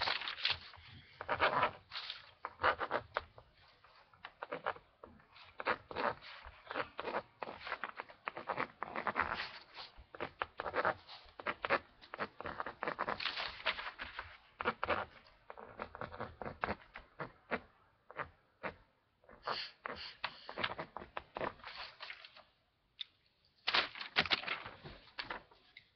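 Irregular rustling and scraping handling noise close to the microphone, coming and going in clusters with short pauses.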